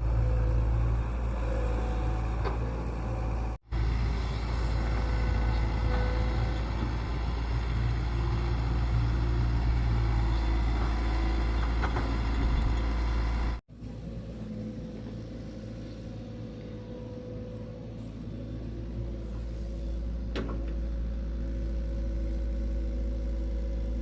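An engine running steadily with a low rumble, broken by two abrupt cuts about four and fourteen seconds in, and quieter after the second cut.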